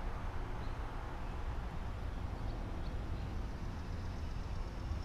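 Steady low outdoor rumble with a few faint, short high chirps.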